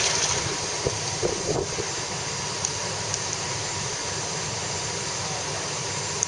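A car engulfed in flames, the fire burning with a steady rushing noise and a few crackles and pops in the first couple of seconds.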